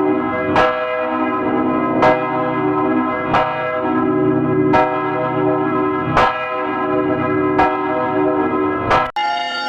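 A church bell tolling at a steady, slow pace, about one stroke every second and a half, seven strokes in all, its ringing sustained between strokes. It cuts off abruptly shortly before the end and a different bell ring begins.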